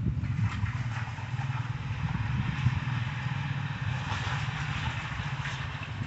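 An engine running steadily, with water swishing and splashing as clothes are worked by hand in a basin of soapy water.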